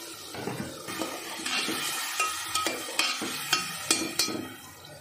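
A metal spatula stirring meatballs in boiling, sizzling curry gravy in a steel pressure cooker. Over the last couple of seconds there are several sharp clinks of the spatula against the pot.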